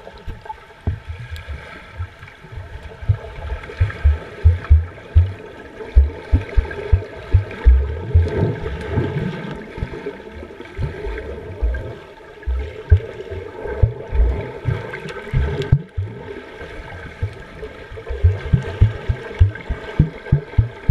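Underwater pool sound heard through a GoPro's waterproof housing: muffled water sloshing with frequent, irregular low thuds from swimmers' kicks and splashes, over a steady hum.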